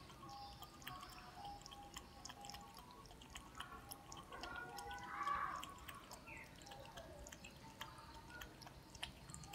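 A cat lapping water from a saucepan: a run of small, quick, irregular wet clicks. A louder, brief sound comes about five seconds in.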